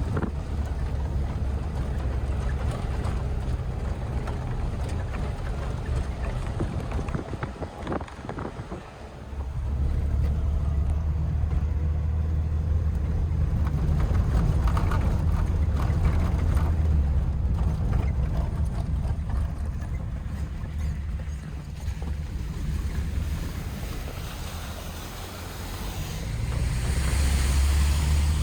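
Wind buffeting the microphone: a low, rumbling roar that swells and eases, dropping away briefly about eight seconds in and again for a few seconds near the end.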